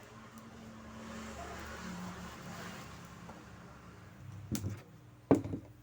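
Bench DC power supply running under load with a steady low hum and a hiss that swells and then eases, while it pushes current into a shorted 19 V rail on a laptop motherboard to make the faulty capacitor heat up. Two sharp clicks come near the end.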